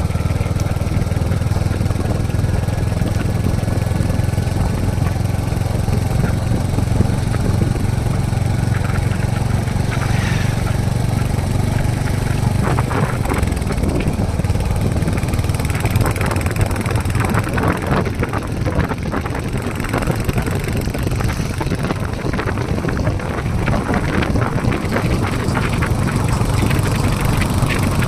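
Royal Enfield Hunter 350's single-cylinder 349 cc engine running steadily with its low, even thump.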